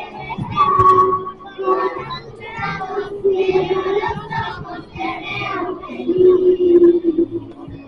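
A group of schoolchildren singing a song together, with held notes and one voice through a microphone.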